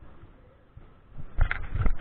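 Water sloshing and splashing around a wader's legs in a shallow river, in a few loud, uneven bursts starting about a second in.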